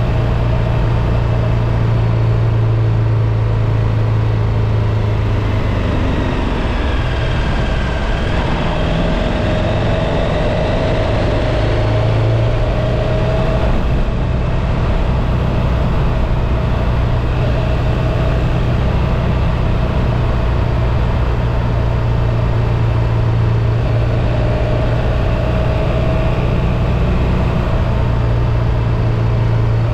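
Motorcycle engine running steadily under way, its low hum under a constant rushing noise. The hum eases off for several seconds about a fifth of the way through, then picks up again.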